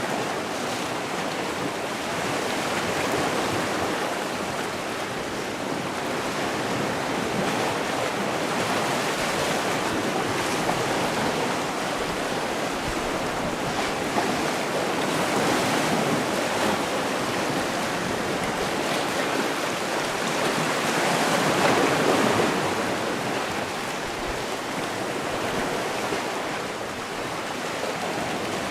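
Sea waves washing onto a shore in a continuous surf rush that swells and eases slowly, loudest about three quarters of the way through.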